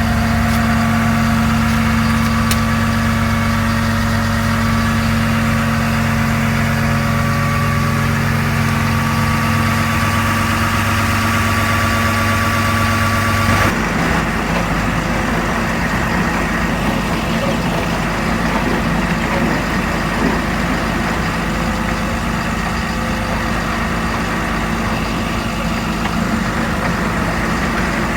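Caterpillar AP655D asphalt paver's diesel engine running steadily. About halfway through, the engine note changes abruptly and goes on rougher.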